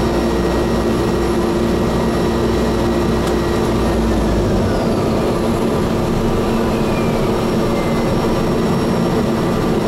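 Cessna Grand Caravan's Pratt & Whitney PT6A turboprop engine running on the ground, heard loud and steady from inside the cockpit. About halfway through, the deep rumble drops away and a faint tone slides down in pitch as the propeller lever is taken toward feather for the prop feather check.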